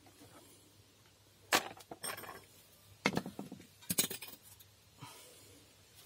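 Metal hand tools clinking and rattling as they are handled: four short clusters of sharp clicks, the first and loudest about one and a half seconds in, the last about four seconds in.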